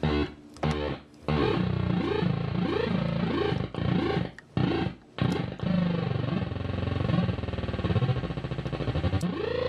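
Homemade Atari Punk Console-style sound effects synth: a few short beeps, then a sustained electronic tone whose pitch swoops up and down again and again, with a few brief breaks.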